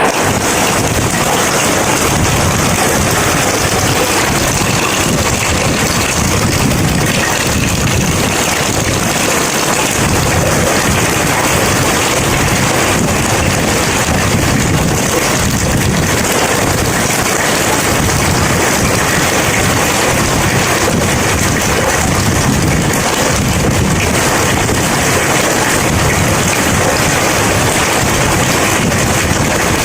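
Heavy rain falling: a steady, loud rushing hiss that does not let up, with a low rumble that swells and eases.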